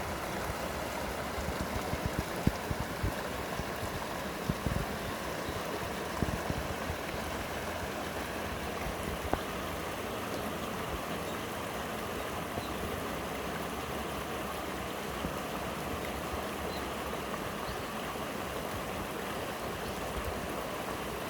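Stream water flowing steadily down over rocks, a continuous rushing with no break. A few low thumps sound in the first several seconds.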